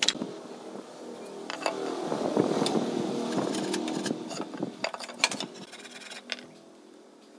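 A motor engine passing by: it swells about a second and a half in and fades away over the next few seconds. Sharp clicks and knocks of a pine board and a marking gauge being handled on a concrete floor.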